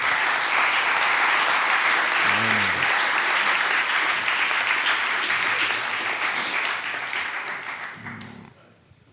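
Audience applauding, a dense steady clapping that tapers off over the last couple of seconds.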